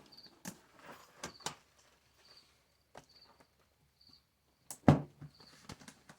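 Crickets chirping in short high pulses, with scattered sharp clicks and knocks over them; the loudest knock comes near the end.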